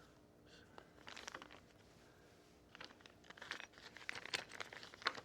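Faint, scattered clicks and scrapes of metal hardware and hand tools being handled, in a short burst about a second in and again from about three to five seconds in.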